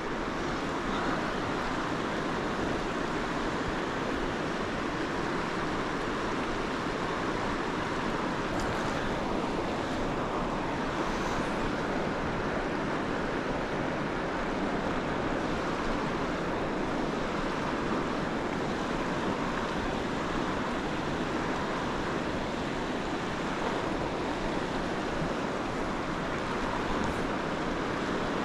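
Fast-flowing river rushing steadily past, an even wash of water noise.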